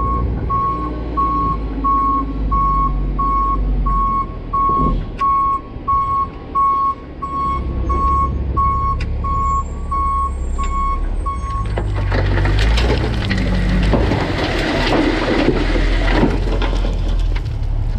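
Dump truck's reverse alarm beeping steadily as it backs up, its diesel engine running low underneath. About twelve seconds in the beeping stops and a long rushing rumble begins as a load of dirt slides out.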